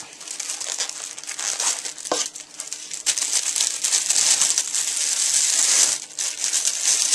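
Packaging crinkling and rustling as a lens hood is unwrapped, getting louder about three seconds in.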